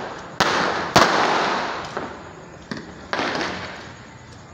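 Aerial fireworks bursting overhead: two sharp bangs about half a second apart near the start, the second the loudest, then two fainter ones around three seconds in. Each bang trails off in a long, fading echo.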